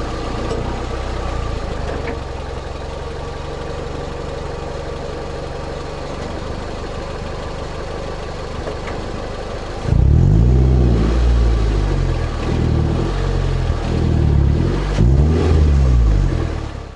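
2003 Toyota MR2 Spyder's 1ZZ-FE four-cylinder running steadily through a Powerhouse Amuse Titanium Extra titanium cat-back exhaust, heard close to the exhaust outlet. About ten seconds in it turns much louder as the engine is revved in a series of quick blips, each rising and falling in pitch.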